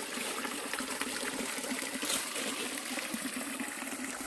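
Water pouring steadily from a pond filter box's outlet and splashing into the pond below.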